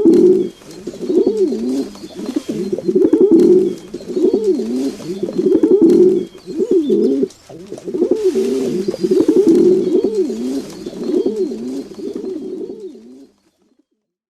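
Pigeons cooing: a run of repeated low, wavering coos, one after another, that stops about a second before the end.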